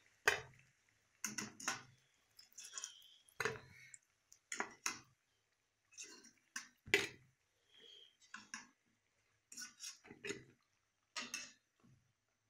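Wire-mesh skimmer knocking and scraping against a steel kadai and a steel plate in about a dozen separate metal clinks, as fried singaras are lifted out of the oil and set down.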